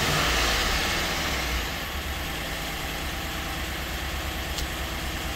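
Chevrolet 5.3-litre V8 idling with a lifter tick, a little quieter after about two seconds. The tick comes from collapsed AFM lifters, which the owner fears are too damaged to recover.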